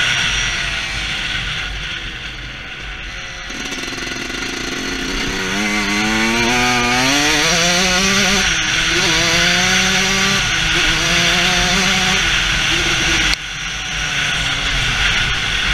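Dirt bike engine under a rider's helmet, with wind rushing over the microphone. The engine climbs in pitch through several gear shifts, then the throttle is shut off sharply near the end.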